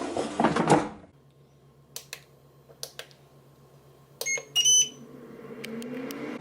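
Ninja air fryer being loaded and set: the basket clatters into the drawer, a few button clicks follow, then a short run of electronic beeps as the time and temperature are set. Near the end a rising hum builds as the fan starts.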